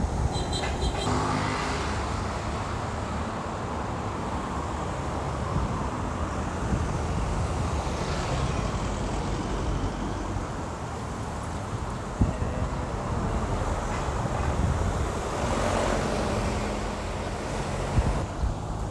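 Road traffic on a city street: vehicles passing steadily, with low wind rumble on the microphone and a louder swell as a vehicle goes by about two-thirds of the way through.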